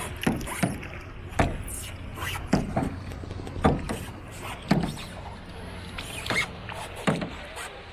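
A run of sharp, irregular knocks and clacks, about a dozen, roughly one every half second to second, over a steady low hum.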